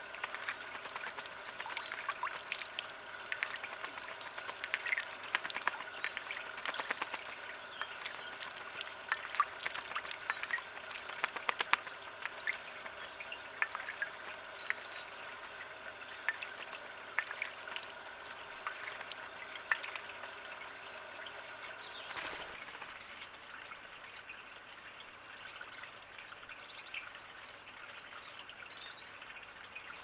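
A male common blackbird bathing in a shallow stone birdbath: many quick, sharp splashes and flicks of water as it dips and shakes its wings. The splashing stops about two-thirds of the way through, leaving only a faint steady background.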